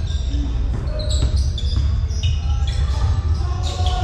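Basketball play on an indoor court: sneakers giving short high squeaks and a ball bouncing, over a steady low rumble.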